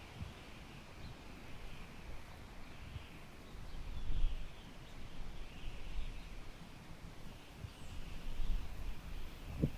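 Wind blowing in gusts with a low rumble, strongest about four seconds in, under continuous high-pitched chirping.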